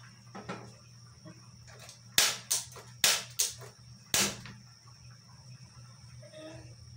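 Tabletop gas stove's igniter clicking as the knob is turned to light the second burner: five sharp clicks over about two seconds.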